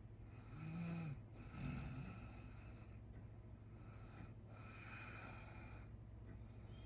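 A sleeping man snoring: two short pitched snores in the first two seconds, the first the longer and louder, then quieter breathing that rises and falls slowly.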